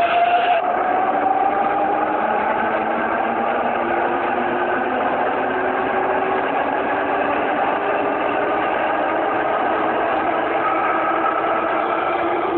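Subway train's electric propulsion whining as it gathers speed, several tones rising slowly and in steps over the running noise.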